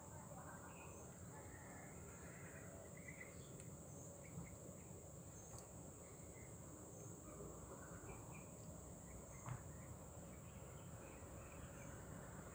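Faint ambience of insects: a steady high-pitched trill, with scattered faint chirps and a couple of small ticks.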